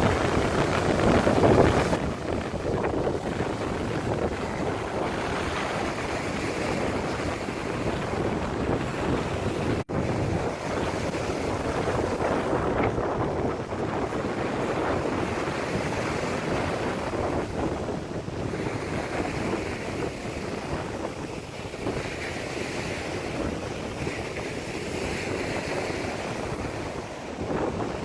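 Lake Superior waves washing on the shore, with wind rumbling on the microphone. The sound is steady and briefly cuts out about ten seconds in.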